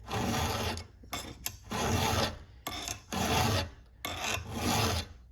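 Round hand file rasping across a chainsaw chain's cutters in long, even sharpening strokes, the strongest about one a second with shorter, lighter strokes in between.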